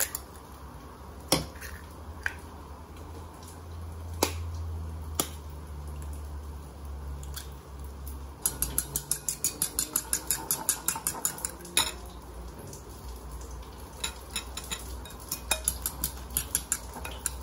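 Eggs cracked into a ceramic bowl, with a few separate sharp taps, then beaten with a metal utensil. The beating is a quick clinking against the bowl, about six strokes a second, in two spells.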